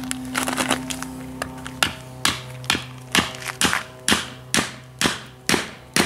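Mason's hatchet hammering on a steel chisel: a few light taps, then a steady run of ringing metal-on-metal blows, about two a second. The chisel is being driven between a concrete slab and its formwork to knock the formwork loose.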